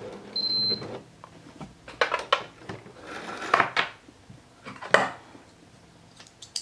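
Elna Lotus sewing machine finishing an automatic buttonhole: the stitching ends within the first second, with a short high beep. Scattered clicks and knocks follow as the fabric is taken out from under the buttonhole foot.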